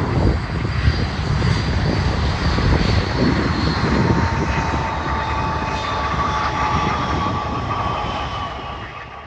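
Airbus A321's IAE V2500 jet engines at taxi power as the airliner passes: a low rumble under a steady whine that sinks slightly in pitch as it moves away, fading near the end.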